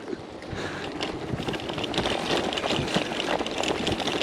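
Bicycle riding: a steady rushing noise with fine crackling throughout, and wind on the microphone.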